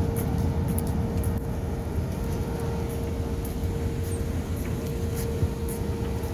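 Steady background rumble with a constant mid-pitched hum running through it, and a few faint clicks.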